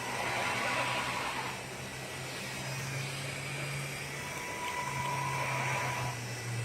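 Motor and drivetrain of a homemade radio-controlled truck running. A low hum and a higher whine step up and down in pitch as the speed changes.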